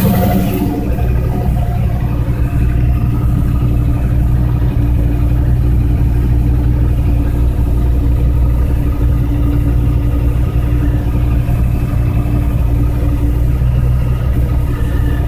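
Dodge Viper 8.3-litre V10 with a big Competition Cams camshaft and stock exhaust, settling back from a light rev within the first second and then idling steadily. It runs on the stock tune, which will not hold an idle with this cam, so the idle is raised by a deliberate vacuum leak from the unplugged brake booster hose.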